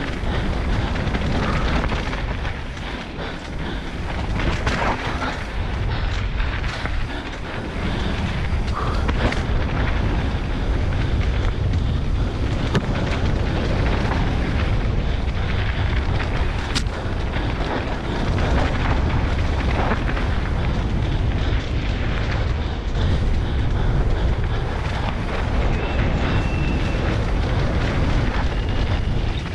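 Enduro motorcycle engine running hard and changing with the throttle, mixed with heavy wind noise on a helmet-mounted camera, and an occasional sharp knock from the bike over rocks.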